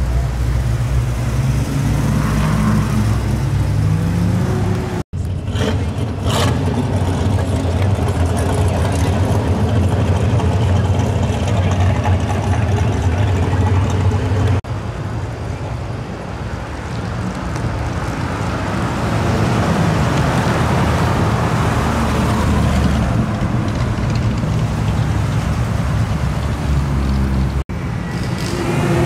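Classic and muscle car engines rumbling as the cars drive past, one after another. The revs rise a few seconds in, and the sound changes abruptly three times.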